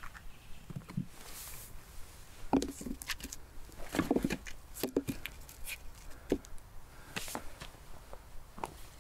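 Irregular knocks, snaps and rustles of someone handling sticks and twigs on the forest floor while preparing a campfire. The sounds come in uneven clusters and are loudest about a third and halfway through.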